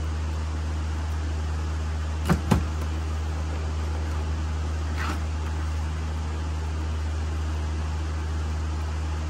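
Steady low hum, with two sharp knocks in quick succession a little over two seconds in and a lighter click around five seconds.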